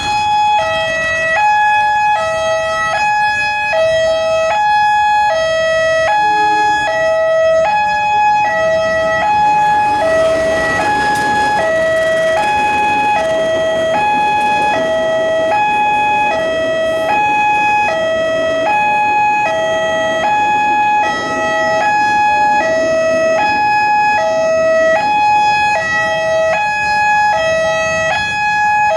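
Railway level-crossing warning alarm sounding a steady two-tone high-low signal, about one cycle a second, the signal that a train is approaching and the barriers are down. A rush of broad noise swells about ten seconds in and fades after a few seconds.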